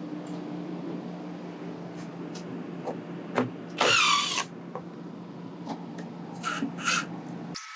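Interior demolition work: a steady machine hum under scattered light knocks and clicks, with a short high squeal about four seconds in and two brief scrapes near the end.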